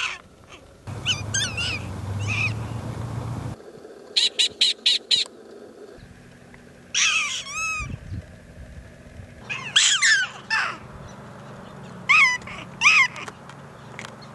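Prairie dogs calling: about six groups of sharp, high yips with sliding, arching pitch, the jump-yip call that goes with the head-thrown-back display. About four seconds in there is a quick even run of about six short barks.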